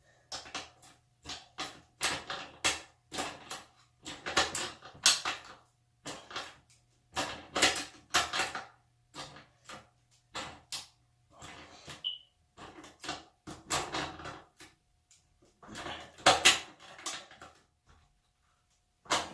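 Bicycle chain and rear sprocket being turned by hand, with irregular bursts of clicking and rattling, to check that the freshly tensioned chain runs without catching.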